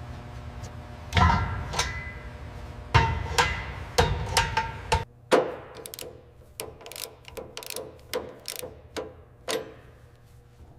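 Workshop clanks and knocks: three heavy, ringing knocks with a deep thud about one, three and four seconds in, then, after a sudden drop in level, a quick run of lighter, sharp clicks and taps.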